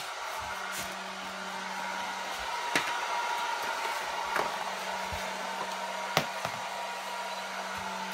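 Hair dryer running steadily, with three sharp knocks about three, four and a half, and six seconds in.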